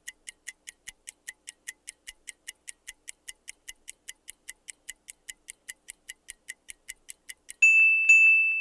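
Countdown timer sound effect: a clock ticking evenly at about four ticks a second. Near the end a loud, high, steady tone sounds for about a second as the timer runs out.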